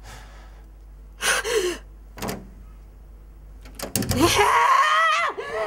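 Human voices with no words: two short gasps, then about four seconds in a long, high, strained cry that wavers in pitch, as in a scuffle.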